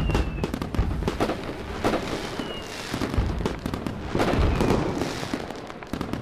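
Fireworks crackling and popping in a dense, irregular run, with a couple of faint falling whistles, fading toward the end.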